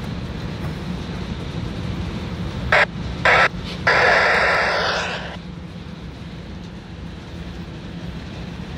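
A steady low engine drone, broken about three seconds in by three short, loud bursts of hissing noise and then a longer hiss of about a second and a half that fades away.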